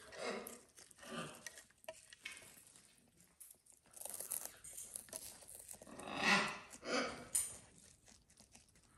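Fresh grass stalks rustling, crunching and tearing as a cockatoo and a fennec fox bite and pull at them. The sound comes in irregular bursts, loudest a little past the middle.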